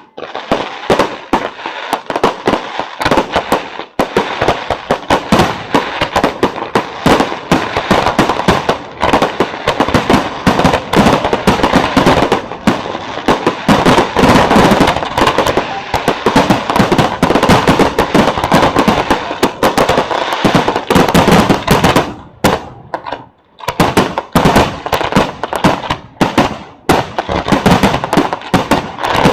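Fireworks finale: a dense, continuous barrage of bangs and crackles going off in quick succession, with a brief lull about three-quarters of the way through before it picks up again.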